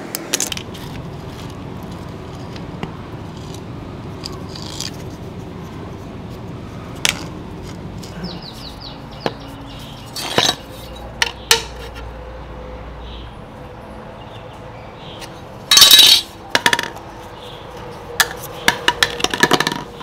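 Hand-work noises: side cutters snip a plastic zip tie near the start, then scattered clicks and clacks as tools and a PVC pipe are handled. About two-thirds through comes one louder half-second burst, and near the end a quick run of clicks, all over a steady low background hum.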